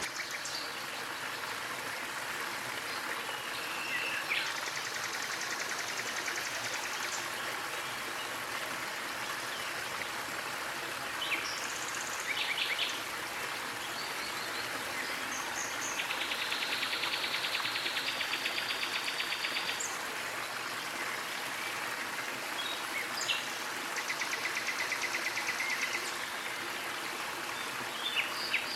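A small waterfall splashing and running steadily, with birds calling over it: scattered short chirps and three rapid, buzzy trills lasting a few seconds each.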